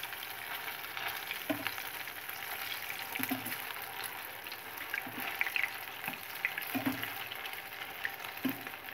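Cheese-stuffed bread balls deep-frying in hot oil: a steady crackling sizzle. They are being turned over once one side is done, and a metal skimmer knocks lightly against the pan a few times.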